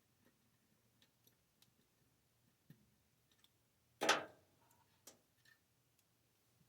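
Faint scattered clicks and ticks of a screwdriver working screws out of the back panel of an old vacuum-tube television, with one louder short clatter about four seconds in.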